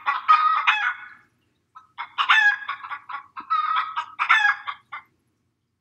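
Chicken clucking: a short call, then after a pause of about a second a longer run of calls.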